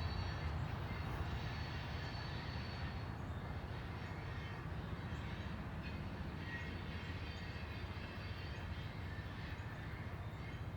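Loaded rock train of gondola and hopper cars rolling past: a steady low rumble of steel wheels on the rails, with a faint high whine over it.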